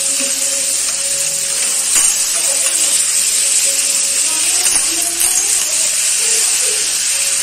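Clams in their shells sizzling in oil and onion masala in a wok, a steady hiss, with a few sharp clinks of shells against the steel ladle and pan as they are stirred.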